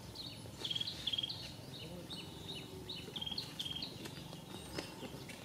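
A high, repeated chirping call, each a quick upward note followed by a short buzzy trill, coming about one and a half times a second over low outdoor background noise.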